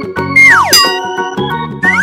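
Cheerful children's background music with cartoon sound effects. About half a second in comes a loud falling whistle-like glide, and near the end there are quick rising glides.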